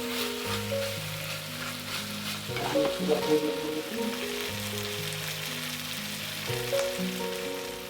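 Food sizzling as it fries in a pan, with a few scrapes and clicks of stirring near the start and again about three seconds in. A melody plays over it in steady, stepping notes.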